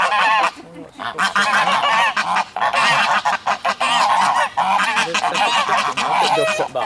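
Geese honking loudly and continuously, several birds calling over one another, with a brief lull about half a second to a second in.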